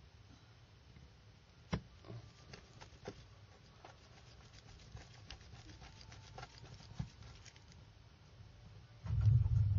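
A small screwdriver clicking and tapping on the screws and plastic back frame of a Sony Ericsson WT19i phone, with a run of fine irregular ticks as a screw is turned. Near the end comes a louder low rumble.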